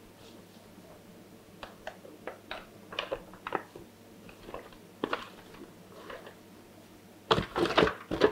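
Shredded kontomire (cocoyam) leaves dropped by hand from an aluminium foil tray into a metal pot: scattered soft rustles and crinkles, louder near the end as the foil tray is shaken over the pot.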